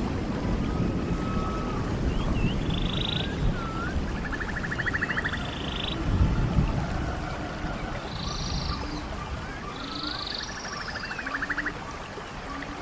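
Rainforest ambience: steady rain with wildlife calling over it: short upward-gliding whistles, two buzzing trills, and from about eight seconds in a run of short low croaks. A low rumble comes near the middle.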